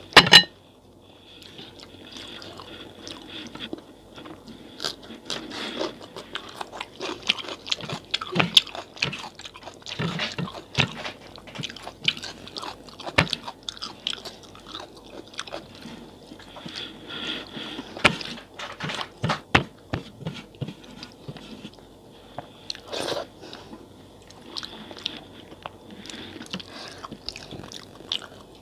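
Close-miked eating: chewing and irregular crunching of fried pakoras and raw salad, with wet mouth sounds. It opens with one loud, sharp crunch.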